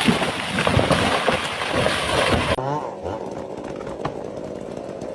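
Loud crackling, crashing noise that cuts off abruptly about two and a half seconds in. Then a chainsaw engine idles steadily, with one sharp knock a second and a half later.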